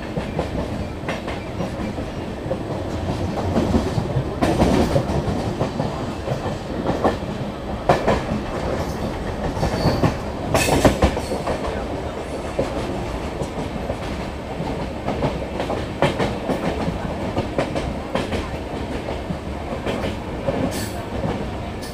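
Train running along the track: a steady rumble of wheels on rails, with irregular sharp clacks as the wheels pass over rail joints, clustered around five and eleven seconds in.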